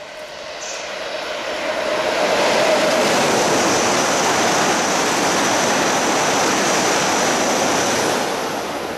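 E7 series Shinkansen train passing at high speed on wet track: a rushing noise of wheels, air and spray that builds over the first two seconds, holds loud with a steady high whine, then falls away near the end.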